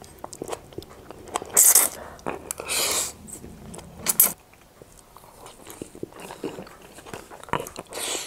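Three loud, hissy slurps of noodles drawn into the mouth, then quieter chewing and lip smacks.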